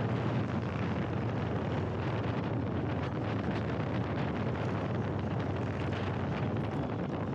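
Wind buffeting the phone's microphone over a low, steady rumble of idling motorcycle engines.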